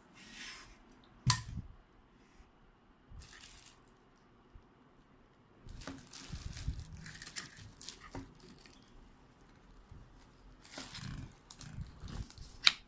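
Plastic vacuum-cleaner parts being handled and fitted together: scattered rustling and scraping, with a sharp loud click about a second in and another near the end as a piece snaps into place.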